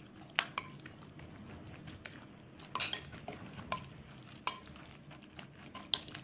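A metal spoon stirring a thick, moist vegetable filling in a glass mixing bowl. A soft, continuous scraping and mixing noise runs under scattered sharp clinks of the spoon against the glass, about half a dozen of them.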